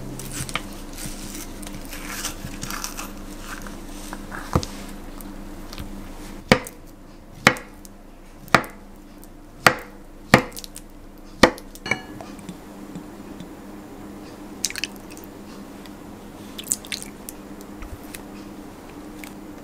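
Spoon scraping avocado flesh out of its skin, then a kitchen knife chopping avocado on a wooden cutting board: about seven sharp knocks roughly a second apart. A couple of light ticks follow near the end, over a faint steady hum.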